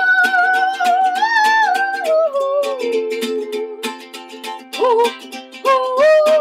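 Ukulele strumming under a high wordless sung melody: a long held note that wavers and slides down over the first couple of seconds, then two shorter notes near the end.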